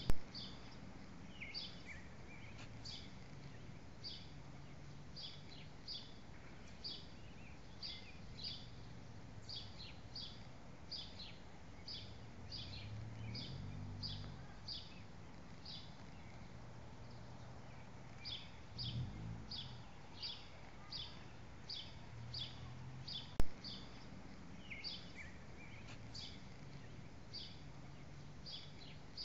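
A bird chirping over and over in short, high notes, many in quick pairs, over a faint low background rumble. A sharp click sounds at the very start and another about 23 seconds in.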